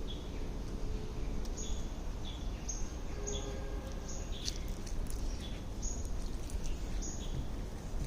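Birds chirping outdoors: short high chirps repeating one or two times a second, over a steady low rumble of background noise.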